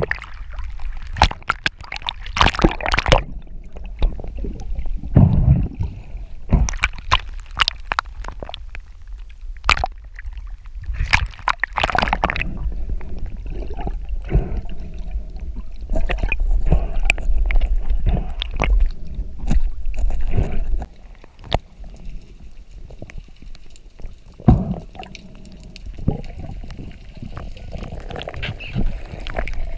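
Water rushing and gurgling around an underwater camera housing during the fight with a speared wahoo, with many sharp knocks and clicks and a low rumble. The rush of water is loudest in the middle and drops about two-thirds of the way through.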